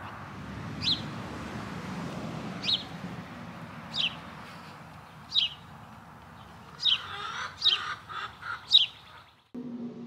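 A small bird calling outdoors: about seven short, high chirps, each sweeping downward in pitch, spaced a second or so apart and growing louder near the end, over a steady background hiss.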